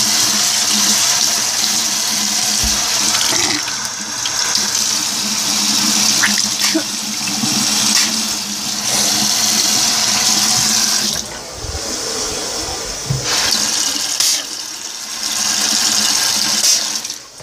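Water running from a bathroom faucet into a sink as a steady rushing hiss. It drops out briefly a few times in the second half and stops near the end.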